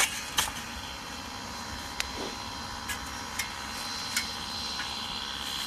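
Steady rushing of a blower-fed coal fire, with a faint fan whine. Over it come a handful of sharp metal clicks as steel tongs knock and grip against the crucible in the coals.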